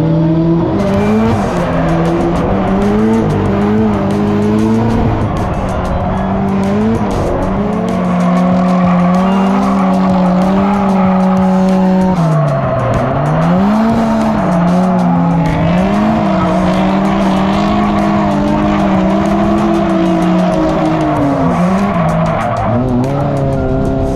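Drift car's engine revving up and down hard while its tyres squeal in a slide. The engine note keeps swinging in pitch, with a sharp drop and recovery about halfway through.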